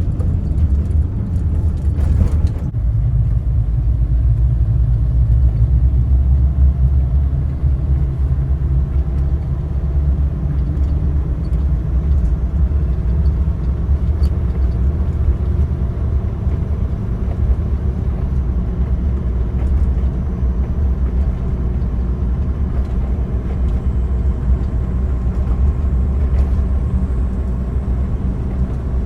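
Suzuki Jimny JA11 on the move: the steady low rumble of its small turbocharged three-cylinder engine mixed with road noise.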